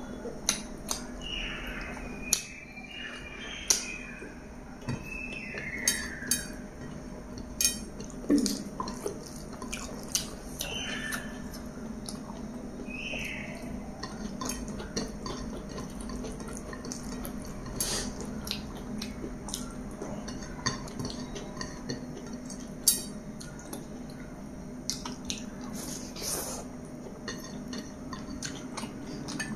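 Close-up eating sounds: chewing and wet mouth clicks while rice and chicken are eaten by hand, with fingers working the food around a ceramic plate. Sharp clicks and smacks come every second or so, with a few short high squeaks in the first half over a low steady hum.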